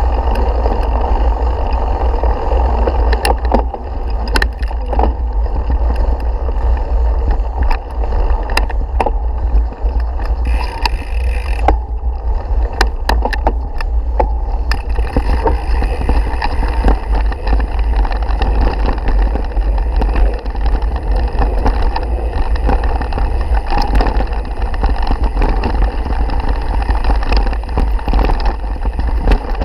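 Mountain bike ridden fast over a grassy and dirt trail: a steady low rumble of wind and ride vibration on the handlebar-mounted camera, with frequent clicks and rattles as the bike jolts over bumps.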